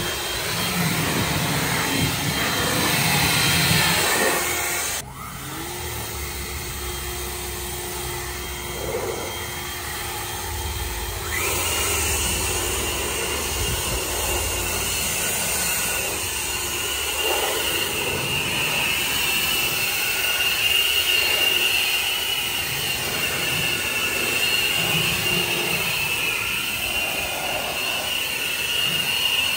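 EGO cordless battery leaf blowers blowing water off a car's body: a steady rushing whine. The level drops suddenly about five seconds in, and a steady high whine comes in near the middle and holds.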